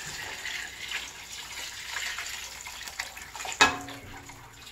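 Water poured from a glass bowl into a pot of vegetables, a steady splashing stream. About three and a half seconds in comes one sharp clink with a brief ring, the loudest sound.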